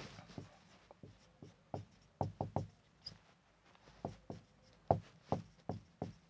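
Marker pen writing on a whiteboard: a string of faint, irregular taps and knocks as the tip strikes and lifts off the board.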